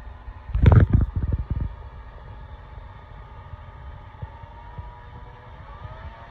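Bridgeport Series II milling machine running with a steady whine. A loud clunk with a few rattles comes just under a second in, and near the end the whine rises in pitch as the speed changes.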